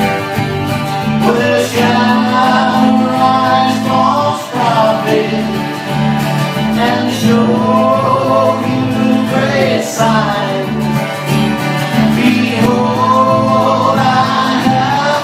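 A small band playing a country gospel song live on guitars, with a man singing that comes in about a second in.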